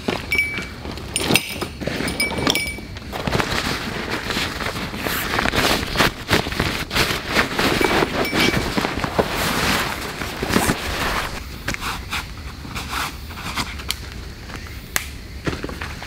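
Camping gear being unpacked from a fabric backpack: steady rustling of the pack's fabric and stuff sacks, with many small clicks and knocks from buckles and gear.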